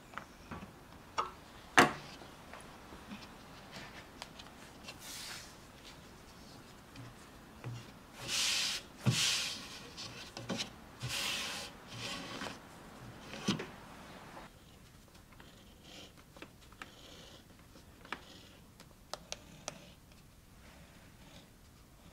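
Hands handling a leather strap and a pine board on a workbench. A sharp knock of wood on the bench comes about two seconds in, then several rough swishes of leather rubbing and sliding against the board and bench, with a few dull thuds. Scattered light taps and clicks follow.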